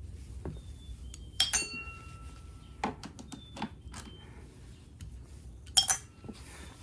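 Metal tools and small parts clinking and tapping as they are handled, several sharp clinks that ring briefly; the loudest come about a second and a half in and again near the end.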